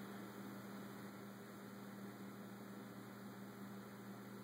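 Steady low electrical hum with a faint hiss beneath it; nothing else sounds.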